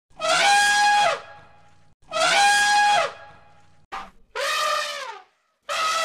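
Elephant trumpeting: two loud, brassy calls of about a second each, two seconds apart and alike, followed by shorter calls that rise and fall in pitch in the second half.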